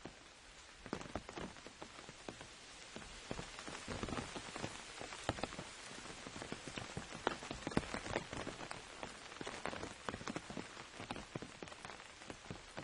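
Rain pattering on an umbrella canopy: a steady hiss of rain with many scattered individual drops tapping sharply on the fabric, heaviest in the middle.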